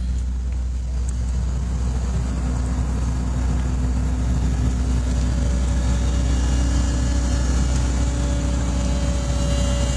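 Heavy demolition machinery running: a steady engine with a deep rumble, its engine tone firming up about two seconds in and a higher tone joining about halfway through, with no crashes or impacts.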